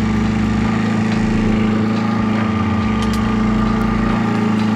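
Small kicker outboard motor running steadily at trolling speed, an even engine hum.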